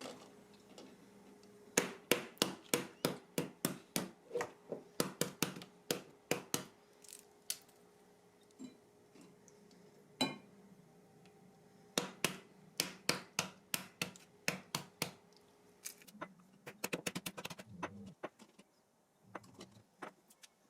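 A knife chopping on a cutting board, in runs of quick, even strokes about four or five a second, with a few single knocks between the runs and a faster flurry near the end.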